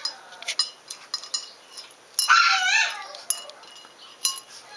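Kibble and a small dog's paw clinking against a stainless steel bowl in quick, irregular taps as he flicks pieces out one at a time. About two seconds in, another dog in the background whines once, rising and falling, and this is the loudest sound.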